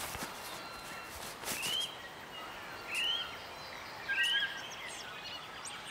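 Three short bird whistles, each rising then dropping, about a second and a half apart, over a quiet outdoor nature ambience.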